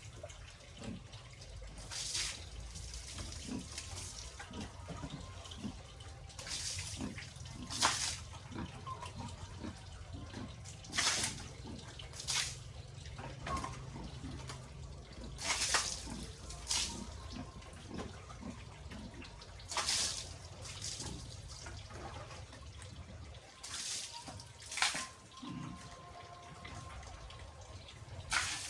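Water splashing and pouring in short, irregular bursts every second or two over a steady low rumble.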